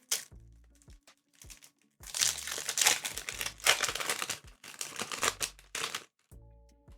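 Foil booster pack crinkling loudly for about four seconds as it is handled, with a few short crackles before it, over quiet background music.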